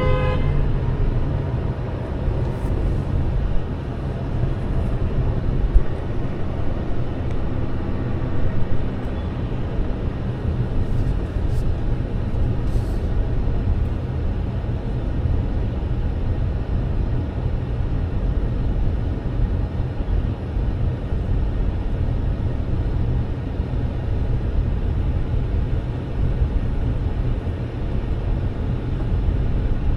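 Steady low rumble of a car driving, with road and engine noise and no sudden events.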